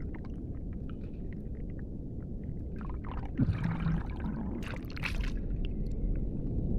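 Underwater swimming-pool sound from a swimmer's point of view: a muffled low rumble with small bubble clicks, and two brief rushes of water about halfway through as the swimmer strokes.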